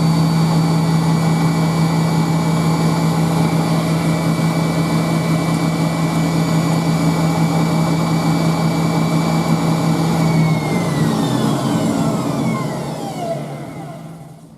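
Hoover Spinarinse 3012A spin dryer running at full spin, a steady motor hum with a high whine. About ten seconds in, the drum and motor wind down, the whine falling in pitch and fading over about four seconds.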